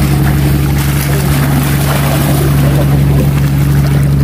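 Steady low engine drone that holds one pitch throughout, over a haze of wind and water noise.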